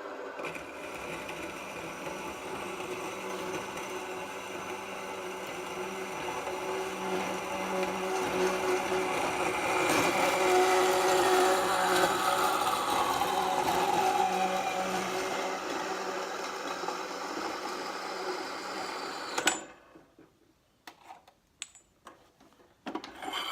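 Bandsaw running and cutting through a bicycle fork's steerer tube. The cutting noise grows louder through the middle, with a ringing tone that falls in pitch. Near the end the saw cuts off abruptly with a click, followed by a few faint knocks.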